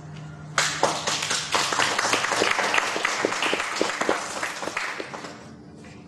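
Audience applauding with hand claps. It starts suddenly about half a second in and dies away near the end.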